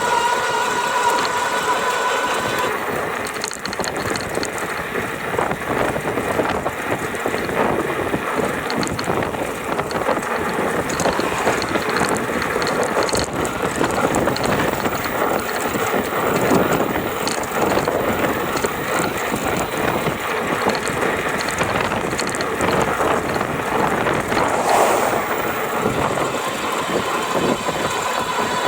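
A GoCruiser rattling under power: a steady high motor whine for the first couple of seconds gives way to a continuous loose, irregular rattle. The rattle is the fault the owner notices when the motor draws between about 670 and 725 watts.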